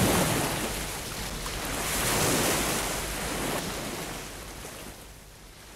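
Ocean surf: waves washing in as a steady rush, swelling about two seconds in, then fading out.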